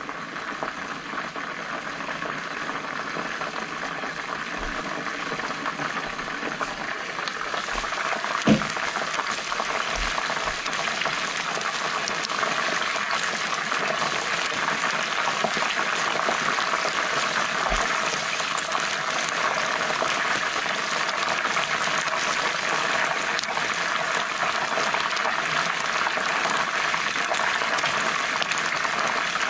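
Chicken wings frying in bubbling oil in a frying pan: a steady, dense sizzle that grows louder after a single sharp knock about eight seconds in, when the glass lid comes off.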